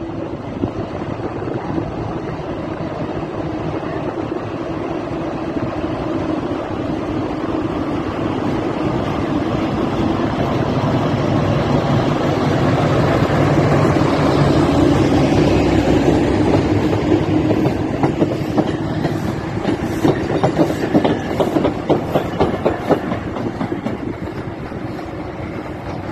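Historic passenger train with a steam locomotive passing close by on the station track: a steady rumble that grows loudest about halfway through, then a quick rhythmic beat from the running gear as it draws away.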